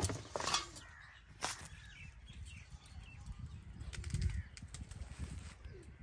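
Plastic bag rustling and a bicycle wheel knocking as they are set down on dry leaf-strewn ground, with a few sharp knocks in the first two seconds. Birds chirp faintly in the background.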